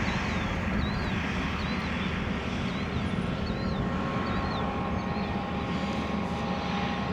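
A steady low mechanical rumble, like a running vehicle, with faint short high chirps repeating through it.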